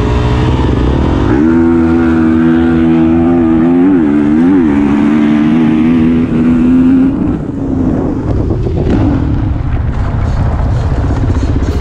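Dirt bike engine pulling away and running at high revs: a steady high pitch from about a second and a half in that wavers up and down twice around four seconds, then eases off into a rougher, noisier sound after about seven seconds.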